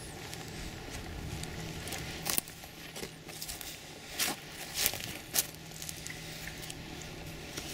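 Footsteps through dry brush: a handful of sharp crackles and twig snaps between about two and five and a half seconds in, over a faint steady low hum.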